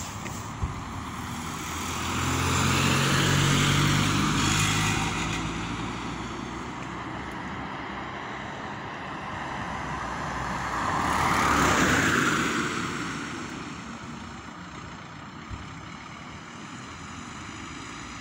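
Two cars passing on the road one after the other, each growing louder and then fading. The first, a few seconds in, has a low engine hum; the second comes about eleven seconds in.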